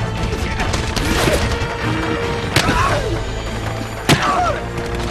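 Action-film battle soundtrack: dramatic score music over the din of combat, with a couple of sharp cracks of gunfire or impacts about two and a half and four seconds in, and voices crying out.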